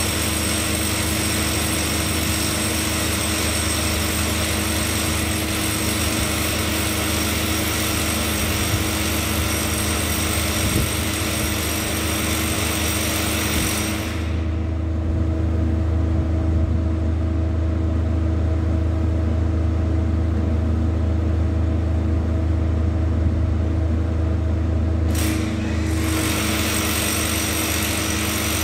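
Loud, steady mechanical drone from background machinery, carrying several fixed tones. About halfway through it turns duller, with a stronger low hum, and near the end it returns to its fuller sound.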